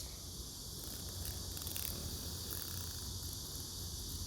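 Cicadas singing in the background as a steady high buzz, over a low steady rumble.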